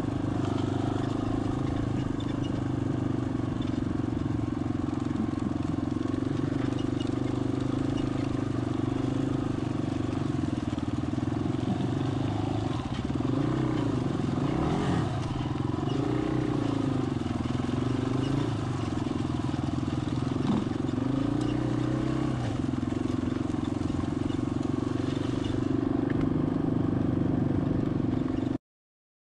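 Yamaha dirt bike's engine running under the rider, heard close up, holding a steady note and then rising and falling in revs several times midway while crossing deep ruts; the sound stops suddenly near the end.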